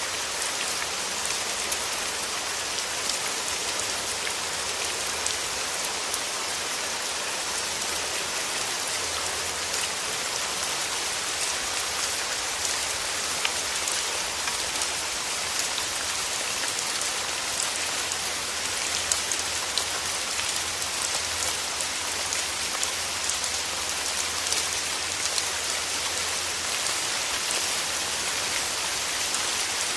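Steady rain falling, an even hiss with many faint, scattered drop ticks.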